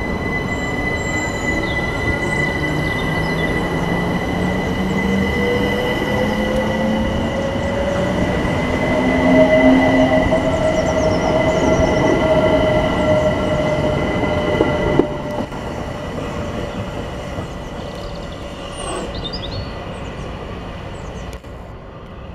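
London Overground Class 378 Electrostar electric train pulling out and accelerating, its traction motors whining in tones that rise in pitch, loudest about ten seconds in. A steady high-pitched whine runs alongside and stops suddenly about fifteen seconds in, after which the train's sound fades as it draws away.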